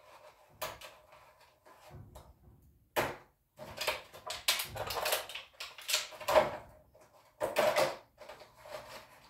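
Clear plastic blister packaging crackling and clicking in irregular bursts as a small die-cast Mini Racers car is worked out of its tray, with a sharp click about three seconds in.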